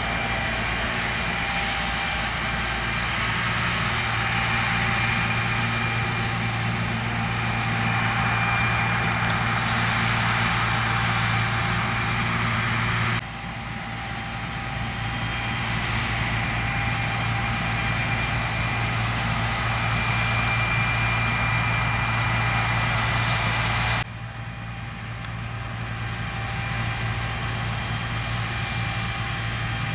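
John Deere T670i combine harvester running steadily while combining wheat, a low engine hum with a steady whine above it. The sound drops abruptly twice and each time builds back up gradually.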